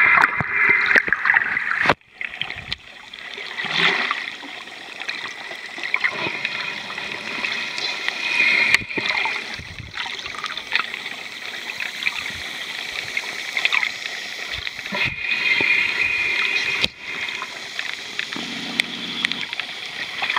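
Water sloshing and gurgling around a camera held underwater, with scattered clicks and crackles and a few brief dropouts.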